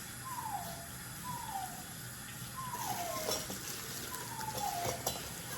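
Kitchen tap running into a sink, with a few clicks and clinks. A short chirp falling in pitch repeats about once a second over it.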